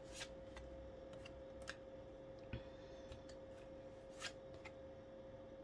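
Faint scattered clicks and light taps of oracle cards being handled on a table, about half a dozen, the clearest about four seconds in, over a steady faint hum.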